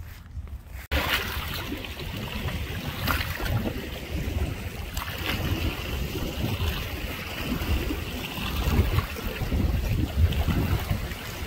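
Wind rumbling on the microphone over a steady outdoor hiss, starting abruptly about a second in.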